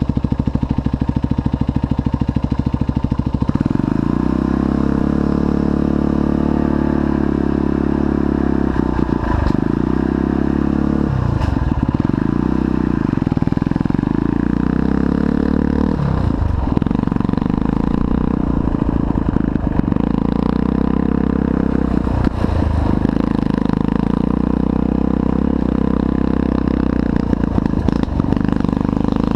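1986 Honda 125cc dirt bike engine running steadily, then revving up as the bike pulls away about three and a half seconds in. Its pitch rises and falls over and over with the throttle and gear changes as it rides.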